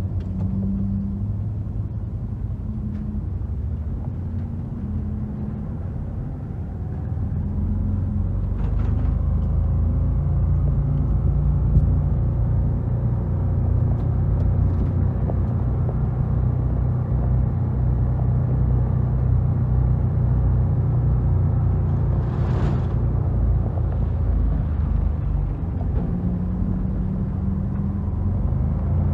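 A vehicle engine running with road rumble as it drives along, growing louder about seven seconds in as it picks up speed, with a brief rushing noise a little past the twenty-second mark.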